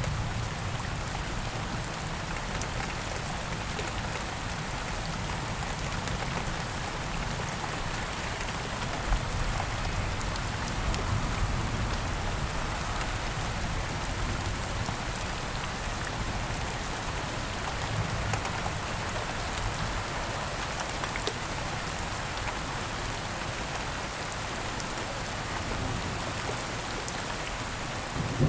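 Rain falling steadily in a thunderstorm, an even hiss of drops on surfaces, with a low rumble of thunder dying away about a second in.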